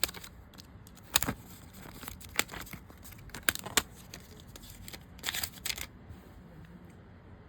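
Smartphone box and packaging being handled: scattered sharp clicks and crinkling, with a quick cluster of rustling about five seconds in.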